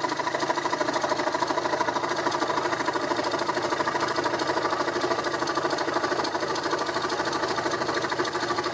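Hegner variable-speed fret saw (scroll saw) running at a slow setting, its blade stroking up and down in a steady, fast rhythm as it cuts a curve through a wooden board.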